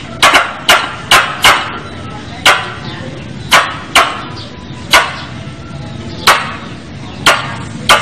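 Tree squirrel calling: about eleven short, sharp chips at irregular intervals, some in quick pairs, the squirrel call used as a lure to draw in squirrels.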